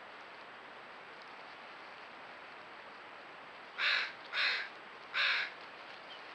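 Three short, harsh animal calls close together, starting about four seconds in, over a steady hiss.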